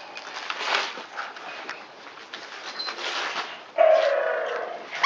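Christmas wrapping paper rustling and crinkling as dogs play with it, then a loud, drawn-out squeal lasting about a second near the end.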